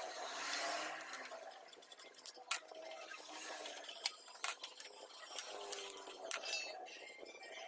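Scattered light clicks and clinks of small metal parts or tools being handled, over a faint hiss.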